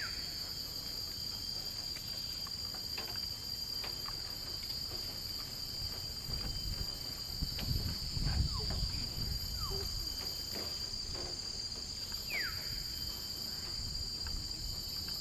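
Steady high-pitched drone of rainforest insects, with a bird's short falling whistle near the start and again about twelve seconds in. Scattered light footsteps ring on the metal mesh walkway of a suspension bridge, and a low rumble swells briefly about eight seconds in.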